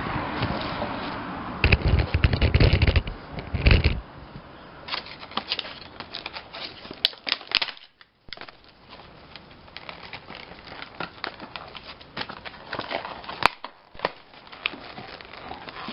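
Packaging being crinkled and torn open by hand to get a knife out, with irregular crackles and clicks. Heavier handling bumps and rustling come in the first few seconds.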